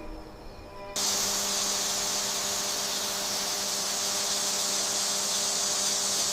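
A steady, even hiss, strongest in the high register, that cuts in abruptly about a second in, over a low steady hum.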